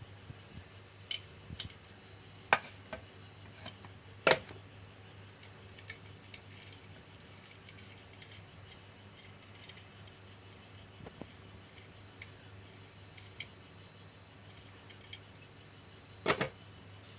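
Scattered metallic clicks and knocks of tools and small metal parts being handled while working on a sewing machine's clutch motor, the loudest about four seconds in and a double knock near the end, over a low steady hum.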